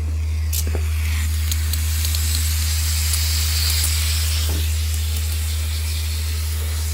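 Hot water spraying and hissing out of a leak in a PPC hot-water pipe, a steady hiss that swells in the middle, over a constant low hum.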